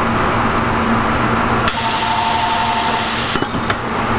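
Screen-soldering machine on a circuit-board line: a loud hiss with a whine starts about halfway in, lasts nearly two seconds and stops suddenly, then a few sharp clicks follow. A steady hum runs underneath.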